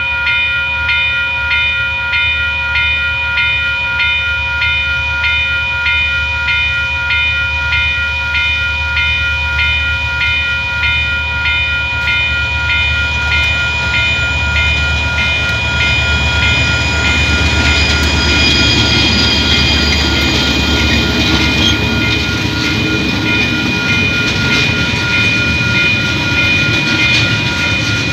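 Level-crossing alarm bell ringing in quick, even, repeated strokes. From a little past halfway, the rumble and rail noise of a KiwiRail coal train build up under it as the train reaches the crossing, and its wagons are rolling past by the end.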